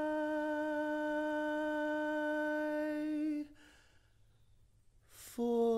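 A singer humming a long, steady held note that dies away about three and a half seconds in. After a short pause there is an audible intake of breath, and a new, slightly lower hummed note begins near the end.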